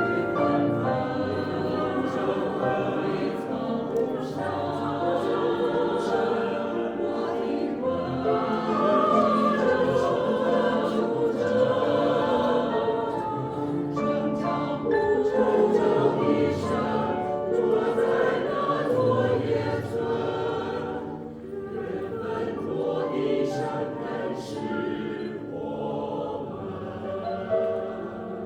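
Music: a song sung with choir-like singing over instrumental accompaniment.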